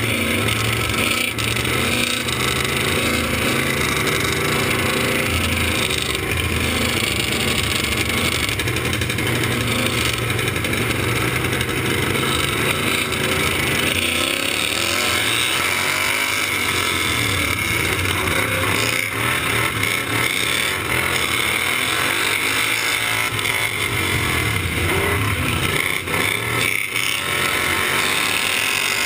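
Outlaw-class racing lawn mower engine running hard, heard from on board the mower, its pitch rising and falling as the driver works the throttle through the turns, mixed with the engines of other racing mowers running close by.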